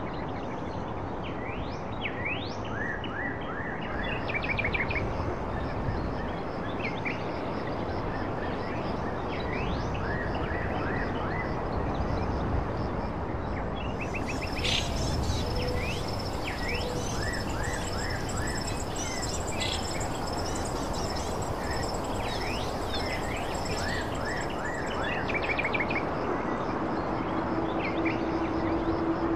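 Outdoor ambience: birds chirping in short repeated calls over a steady rushing background noise. About halfway in, a high steady insect-like trill joins, and near the end a low steady hum begins.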